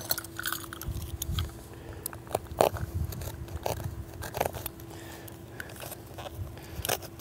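Scattered clicks, crackles and scrapes of hand tools being handled on a vinyl roof membrane while a core-sample hole is marked and set up, over a faint steady hum.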